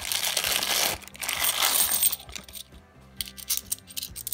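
Clear plastic bag of 50p coins rustled and opened for about two seconds, coins jingling inside, then a run of light clicks as individual 50p coins are picked out and knocked against one another.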